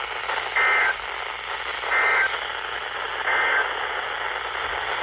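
Emergency Alert System end-of-message data code: three short two-tone warbling bursts about a second apart, over steady radio hiss. It signals that the warning broadcast has ended.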